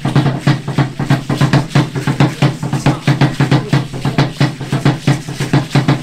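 Drum accompanying Aztec dance, beaten in a quick, even rhythm of about four to five strokes a second over a steady low tone.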